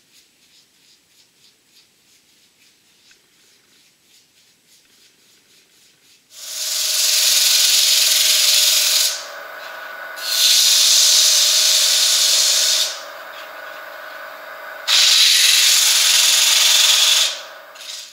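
Sandpaper held against an ash bowl spinning on a wood lathe, sanding between coats of sealer. It makes three long passes of hissing, starting about six seconds in, over the steady hum of the lathe motor, which keeps running between passes. Before that there is only faint soft ticking.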